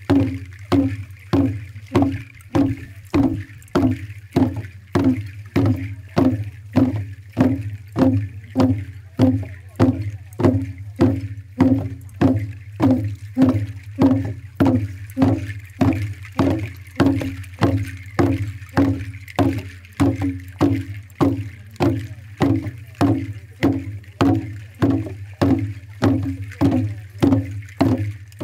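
Kundu hourglass hand drums beaten in unison in a steady, even rhythm of about two strokes a second, each stroke with a short, pitched ring.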